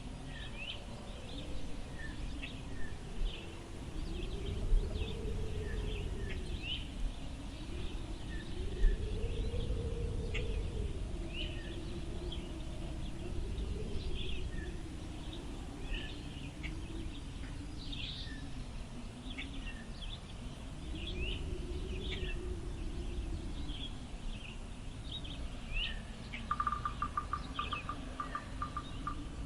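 Wind blowing over a low rumble, with a low whistling tone that swells and falls with the gusts every few seconds. Short high bird chirps sound throughout, and a rapid trill comes in near the end.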